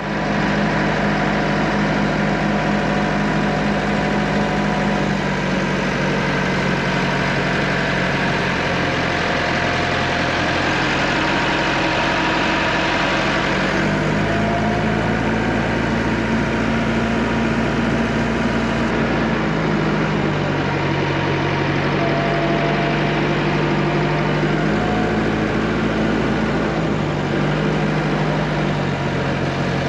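Vehicle engine running steadily during a short drive, its pitch stepping up and down several times as the speed changes.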